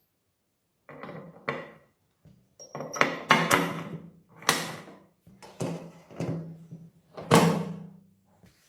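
A series of about eight irregular knocks and thuds, some in quick pairs, each followed by a brief low ringing.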